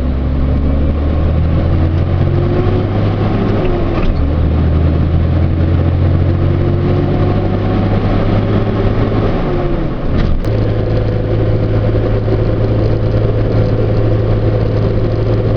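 Truck engine running, heard from inside the cab while driving. Its note changes a few times, with a break about four seconds in and a dip about ten seconds in followed by a sharp click, then settles into a steady hum.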